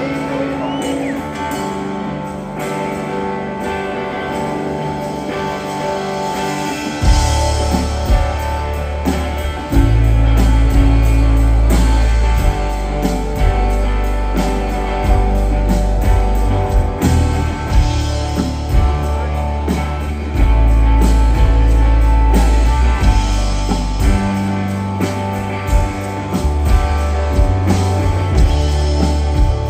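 Live rock band playing, led by electric guitars, with heavy bass coming in about seven seconds in and drums keeping time.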